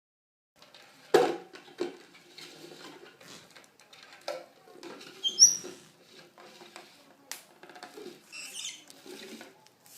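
Small animal scuffling and tapping about, irregular knocks and scratchy pattering with a few short high chirps or squeaks.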